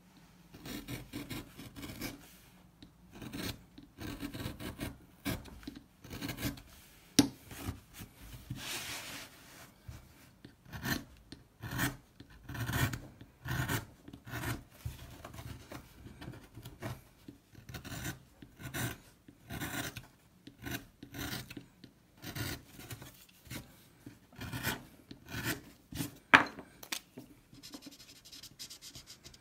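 A small hand carving blade scraping and cutting grooves into a wooden woodcut block in short, irregular strokes, about one or two a second, with two sharper clicks.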